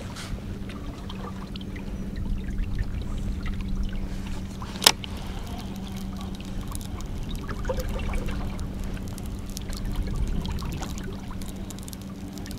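Water lapping and trickling against a kayak hull on the open sea, over a steady low hum, with one sharp click about five seconds in.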